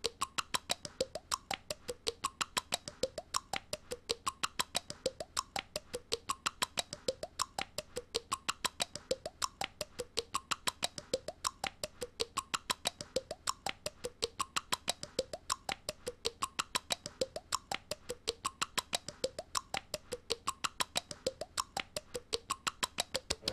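A young girl's rapid, even tongue clicks, about four a second, repeating steadily as a looped mouth noise made on purpose to be annoying.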